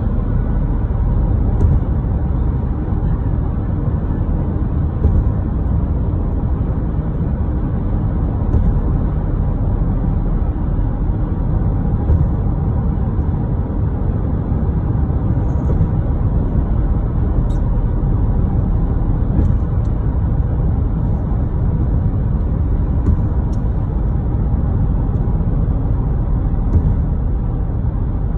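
Steady low rumble of a car's tyres and engine at highway speed, heard from inside the cabin, with faint light ticks now and then.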